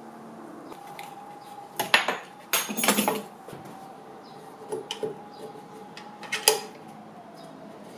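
Metal drawer hardware being handled: sharp metallic clinks and clacks, a loud cluster about two to three seconds in and two lighter ones later.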